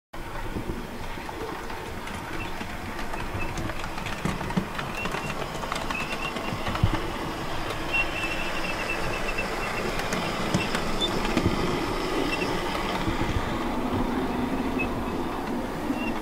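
OO gauge DC model of the steam locomotive Blue Peter running round a layout hauling Pullman coaches: the steady running noise of the motor and wheels on the track, with many small clicks from the wheels over the rails.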